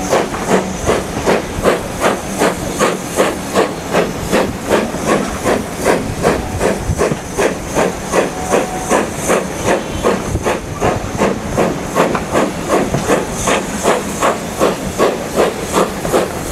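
BR Standard Class 2 steam locomotive working a train, its chimney exhaust beating in a steady, even rhythm, heard from a coach window further back.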